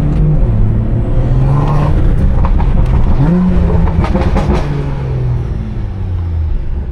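Stage 2+ tuned BMW 340i's turbocharged inline-six through its valved exhaust, revs climbing and easing off twice, with a short run of crackles and pops in the middle as the revs drop.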